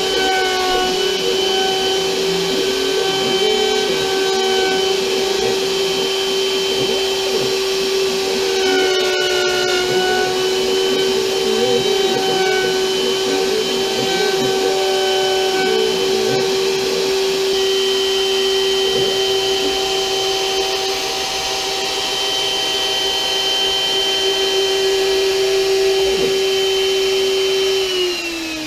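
CNC router spindle running at a steady high whine while cutting a plaque, with rougher cutting noise underneath. Right at the end the whine starts to drop in pitch as the spindle spins down.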